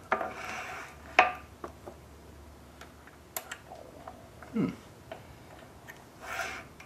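Scattered light metal clicks and clinks from the Maytag 92's kick-starter clutch and shims being handled on the crankshaft, the sharpest click about a second in.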